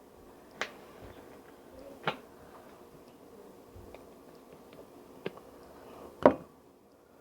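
Ingredients being put into a bowl and their containers handled: four short, sharp clicks and knocks, the loudest about six seconds in, over quiet room tone.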